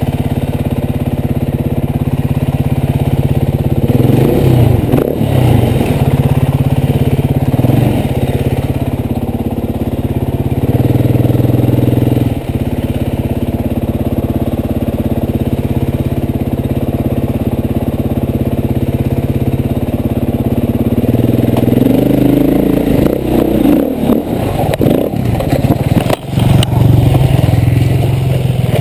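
KTM 450 dirt bike's single-cylinder four-stroke engine running under the rider on a trail. The note rises and falls with throttle changes, busiest about four seconds in and again from about twenty-two to twenty-seven seconds. The throttle is briefly chopped near twelve seconds and again near twenty-six seconds.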